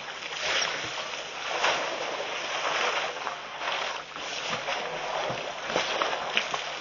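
Steady rushing noise that swells and eases about once a second, with a few faint clicks: wind on an outdoor microphone mixed with water sloshing at a waterhole where a herd of elephants is drinking.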